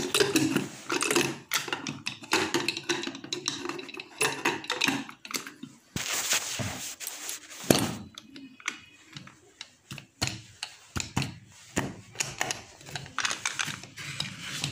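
Irregular clicks, taps and knocks from a metal pressure cooker being handled, its lid and locking handle clattering.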